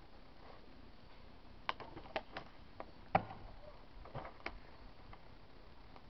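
Handling noise: a scatter of light clicks and taps, with one louder knock about three seconds in, as the book and the recording device are moved about.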